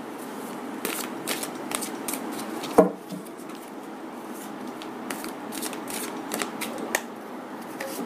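A deck of oracle cards being hand-shuffled overhand, giving bursts of soft flicking and slapping clicks. There is one louder, sharper snap of the cards a little under three seconds in.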